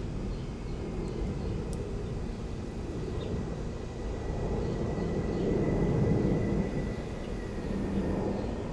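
Steady low rumble of background noise that swells a little past the middle, with a faint thin steady tone.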